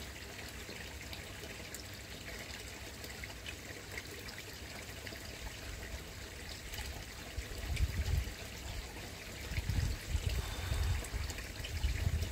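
Steady trickling of koi pond water. From about two-thirds in, irregular low rumbles come and go over it.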